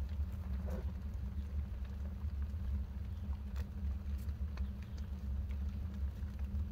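Wood fire burning in a newly built steel stove during its first burn-in: scattered pops and crackles over a steady low rumble.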